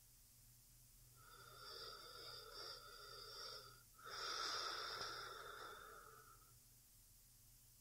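A woman's slow, sleepy breathing: two long, soft breaths a couple of seconds each, the second louder, with a short pause between them.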